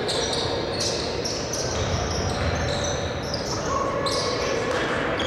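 Basketball play on a hardwood court: sneakers squeak again and again, several short high squeaks a second, over the steady noise of a large, echoing arena.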